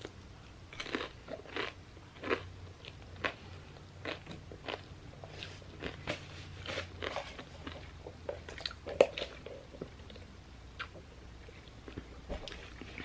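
Close chewing and crunching of a crisp fried rolled chicken taco, with irregular sharp crunches throughout; the loudest crunch comes about nine seconds in.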